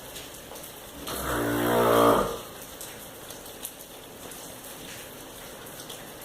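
One long, low call from a bovine, lowing with a deep pitch and growing louder before it breaks off, about a second in. Steady rain hiss underneath.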